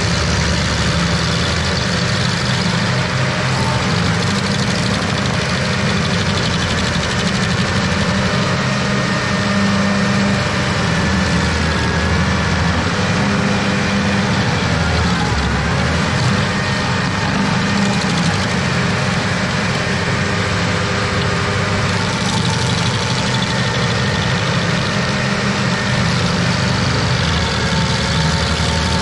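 Carlton 7015 tracked stump grinder running steadily while its cutter wheel grinds into a tree stump.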